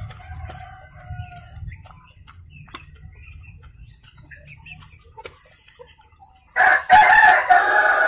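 Ayam Kampung Yudistira hens pecking pellet feed from a trough, a scatter of faint light clicks. About six and a half seconds in, a rooster crows loudly for about two seconds.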